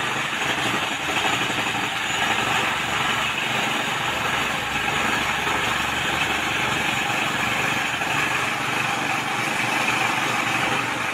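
Concrete mixer truck's diesel engine running steadily while it discharges concrete down its chute and moves slowly forward.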